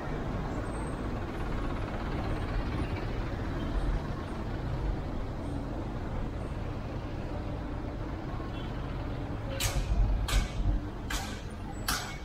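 Steady road and engine rumble of a moving vehicle, with four short, sharp noises about a second apart near the end.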